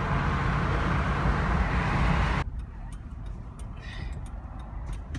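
Road and engine noise inside a moving car's cabin: a steady rush with a low hum. It cuts off abruptly about two and a half seconds in, leaving a much quieter cabin with a few light clicks.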